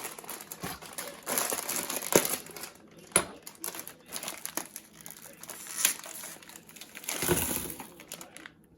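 Packaging crinkling and rustling as it is handled, in irregular bursts with a few sharp clicks.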